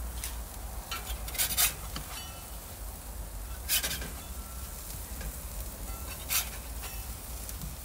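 Metal spatula scraping across a ceramic baking stone in a few short strokes as bread buns are slid up and turned over, over a faint sizzle from burgers grilling on the cast iron grid.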